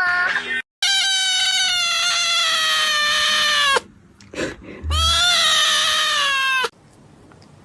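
A cat's two long, drawn-out meows, the first about three seconds and the second about two, each sagging slightly in pitch.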